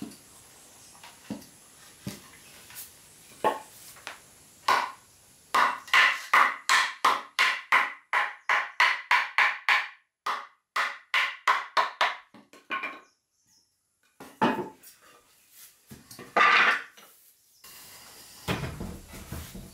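Hammer striking wood: a few spaced knocks, then a fast steady run of blows at about three a second for some seven seconds, a short pause, and a few more knocks.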